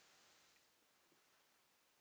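Near silence: a faint hiss that drops away within the first second.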